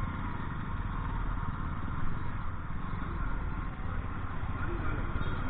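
Motorcycle engine running steadily, a continuous low rumble.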